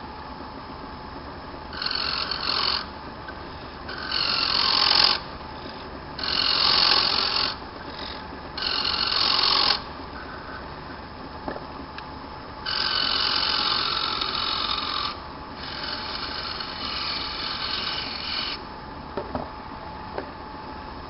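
A lathe turning a bone chess pawn while a hand-held chisel cuts it: six high-pitched scraping passes of one to three seconds each, over the steady hum of the running lathe. A few light clicks follow near the end.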